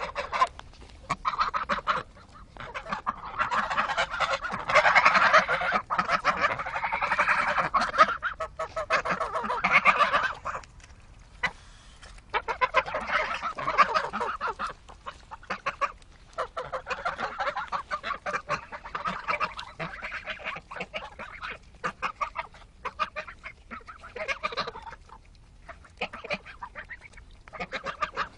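Domestic geese honking and gabbling in runs of several seconds, broken by short pauses, as they feed together at a halved watermelon.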